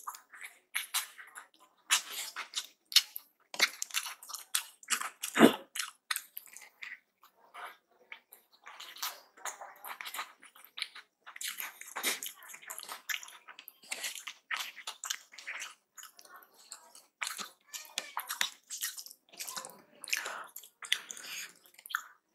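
Close-miked wet chewing and lip-smacking of a person eating rice and potato keema by hand, with squelching as his fingers mix the rice on the plate. The smacks and clicks come thick and irregular, with one louder click about five and a half seconds in.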